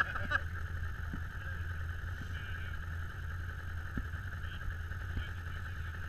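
Quad ATV engines idling on the trail ahead, a steady low hum, with a steady higher-pitched drone over it.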